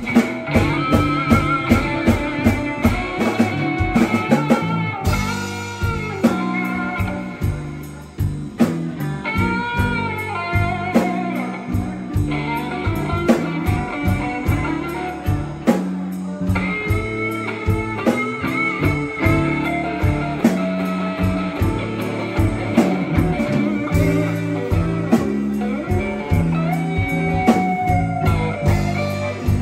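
Electric blues band playing live: a Stratocaster-style electric guitar plays lead lines with string bends over a steady drum beat.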